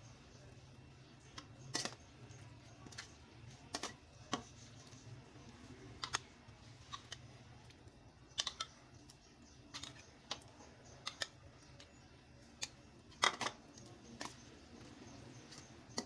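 Metal spoon clinking and tapping against a stainless steel mixing bowl in irregular knocks while stirring a chickpea mixture, the loudest clink about thirteen seconds in.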